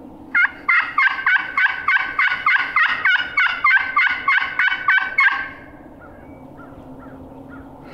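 Wooden turkey box call worked in a long, loud run of yelps, about seventeen notes at roughly three and a half a second, each breaking from a higher to a lower note, stopping about five seconds in. It is loud strike calling meant to make a distant gobbler answer.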